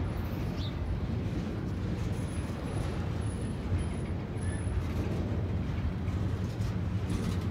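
Double-stack container freight train rolling past: a steady low rumble of the loaded well cars going by.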